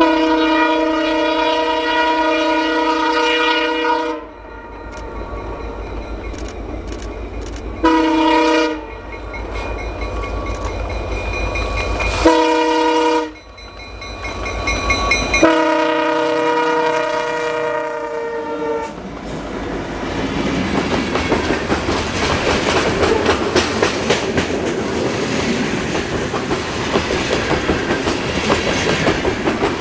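Multi-chime air horn of a CN SD75I diesel locomotive sounding four blasts, a long one, two short and a long one, over the low drone of the diesel engine. About two thirds of the way through, the freight train passes close, with loud rumbling and clickety-clack from its wheels on the rails.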